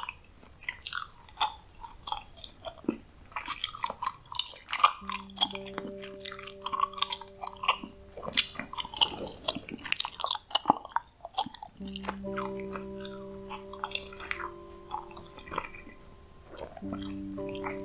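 Close-miked gum chewing: irregular wet clicks and smacks of the mouth. A soft sustained chord of background music sounds under it about five seconds in, drops out, and returns after about twelve seconds.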